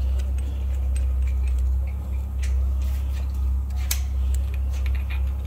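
A few light metallic clicks of a timing locking tool and hand tools being fitted on a bare engine, over a steady low hum.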